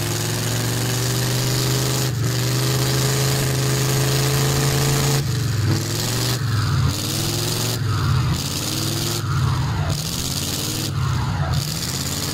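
Old Chevrolet square-body pickup's engine held at high revs with its pitch slowly climbing. About five seconds in it starts revving up and dropping back over and over, about once a second. The driver takes this for a transmission problem.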